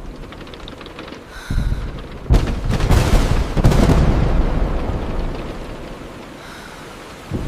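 A thunderclap over steady rain on a car's windshield: a low rumble about a second and a half in, a sharp crack just after two seconds with two more close behind, then rolling thunder dying away over a few seconds. Another low rumble starts near the end.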